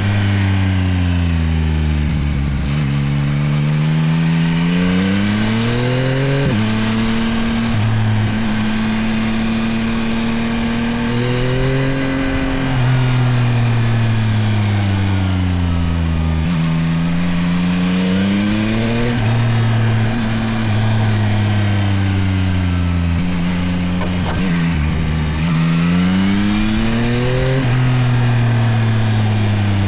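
Yamaha Tracer 9 GT+'s CP3 inline three-cylinder engine on the move, its pitch climbing under acceleration and dropping sharply at each upshift, then falling away as the bike slows. This happens several times, with upshifts about six, nineteen and twenty-seven seconds in.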